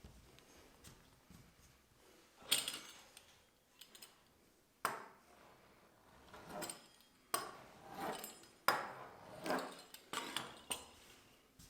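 Kitchenware clattering: a series of sharp knocks and clinks of utensils against bowls or dishes, scattered at first and coming more often in the second half.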